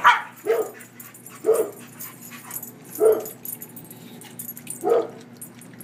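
Dogs barking in rough play: five short barks spread across a few seconds, the first the loudest.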